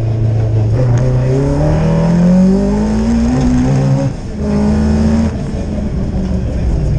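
Rally car's engine heard from inside the cabin, pulling away and accelerating: the revs climb for about three seconds, there is a gear change just after four seconds, the revs are held briefly, and the driver lifts off a little after five seconds.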